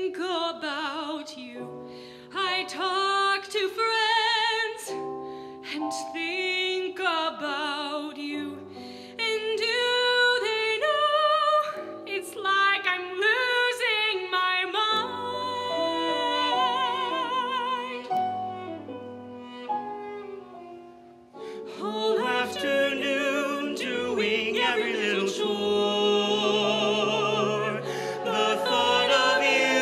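A female soloist sings into a handheld microphone, with vibrato on her held notes, over sustained instrumental accompaniment. After a brief lull about two-thirds of the way through, the sound grows fuller as a show choir comes in behind her.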